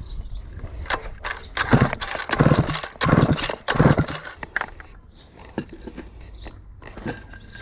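Stihl 051 chainsaw pulled over by its recoil starter about four times in quick succession, short strokes with the rope rasping and the engine cranking against compression during a compression test. The starter cord will only give a short pull, a sign of hidden damage: a cracked flywheel rubbing on the coil.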